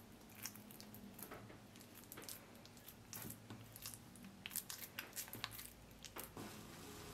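Faint wet squishing of mashed potato pressed and shaped by hand around a peeled boiled egg, with many small scattered squelches and clicks.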